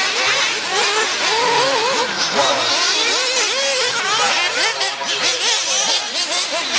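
Several 1/8-scale nitro buggies' small two-stroke glow engines revving up and down at the same time, their high, wavering pitches overlapping.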